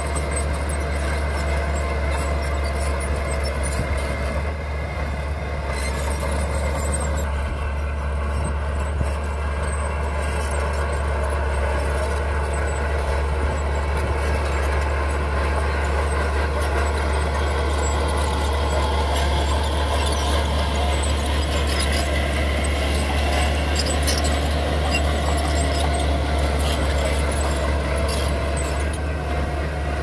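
Mini bulldozer at work: its engine runs steadily with a strong low drone, under a high, whining tone that slowly rises and falls.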